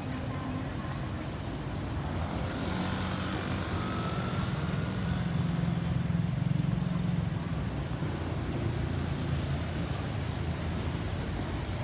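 Road traffic: a motor vehicle's engine and tyre noise swelling as it passes, loudest about six to seven seconds in, then fading.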